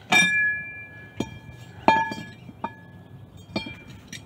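Cast-iron rear brake drum of a 2002 Dodge Neon clanking as it is worked off the hub and handled. There are about five metal knocks, the first and loudest right at the start, and each leaves a bell-like ringing that hangs for up to a second.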